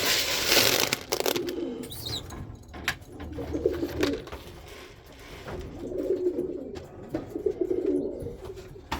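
Pigeons cooing in a loft, several low warbling coos in a row. A loud rustle fills the first second.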